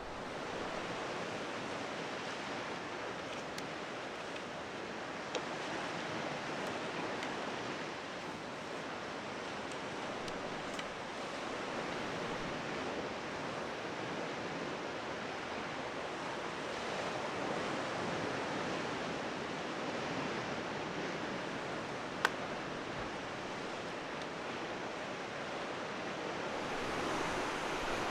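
Sea surf washing against the coast: a steady rushing noise that swells and eases slowly as the waves come in. A single sharp click stands out late on.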